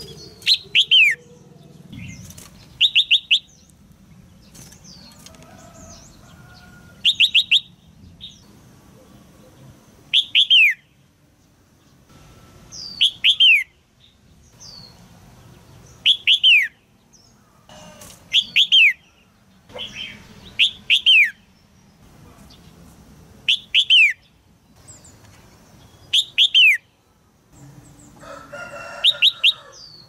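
Female red-whiskered bulbul calling. The sharp chirps come in quick bursts of two to four downward-slurred notes, about one burst every two to three seconds.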